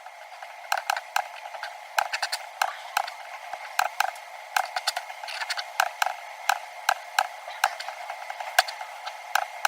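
Computer mouse clicking repeatedly at an irregular pace, about two or three clicks a second, placing points while tracing lines in a sketch, over a steady background hiss.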